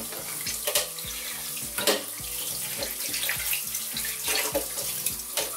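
Kitchen tap running in a steady stream onto salt-cured meat held in an enamel pot in a sink, as hands rinse the salt cure off. A few brief sharp sounds of handling come through the water, three times.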